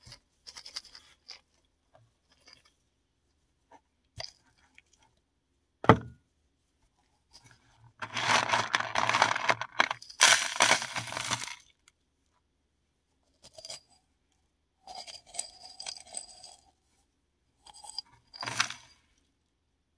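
Paradichlorobenzene mothball tablets crushed by hand: scattered small clicks, a sharp crack about six seconds in, then dense crunching for about three seconds, followed by shorter bouts of crunching and clinking pieces near the end.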